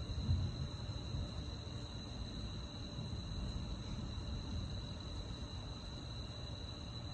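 Crickets trilling in one steady, unbroken high tone, over a low, uneven rumble.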